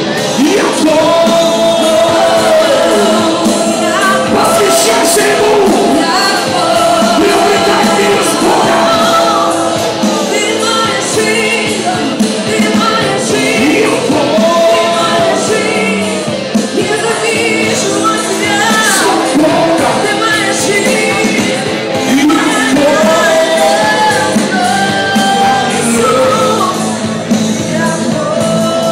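Live worship music from a band with electric guitar and drums, a woman singing lead into a microphone, and the congregation singing along with shouts, echoing in a large hall.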